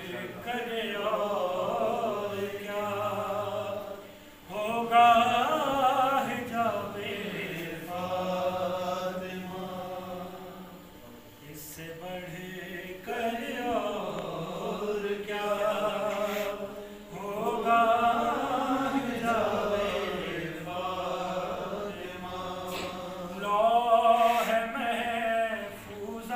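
A man's voice reciting an Urdu devotional poem in honour of Fatima, unaccompanied, in long melodic phrases with held notes and short breaths between them.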